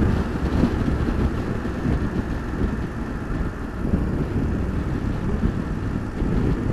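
Wind rushing and buffeting over the microphone of a BMW F850GS Adventure motorcycle at road speed, with the bike's engine running steadily underneath.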